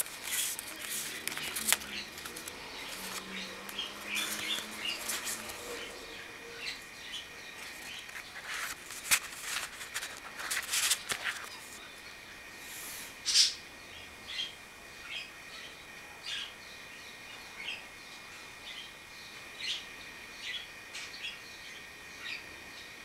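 Card and paper pages of a handmade scrapbook being handled and turned: clusters of crisp rustles and taps, mostly in the first half. Birds chirp in short repeated calls throughout.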